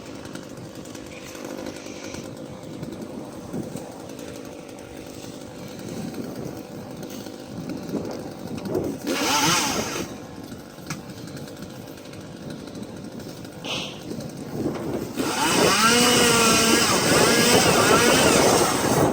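Chainsaw revving and cutting, loud from about three-quarters of the way through, its pitch rising and falling with the throttle. Before that there is a quieter, steady background with a brief swell about halfway.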